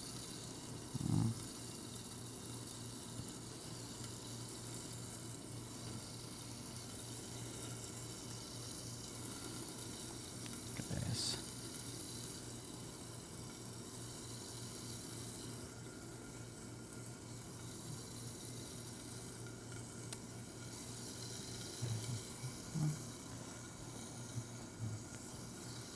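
Poached chicken roulades browning in hot oil in a frying pan, giving a faint, steady sizzle, with a steady low hum underneath. A few brief soft knocks come about a second in, around the middle, and near the end.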